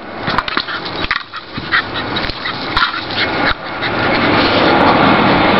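Staffy dog nosing a Noseball along grass and dirt, with dog sounds and scattered short knocks and scrapes of the ball. About two-thirds of the way in, a steady rushing noise rises and holds, louder than the play.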